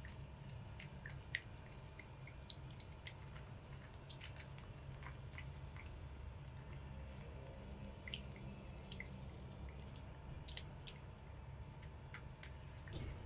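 A cat licking a paste treat from a squeezed stick pouch: faint, irregular wet tongue clicks and smacks over a low steady hum.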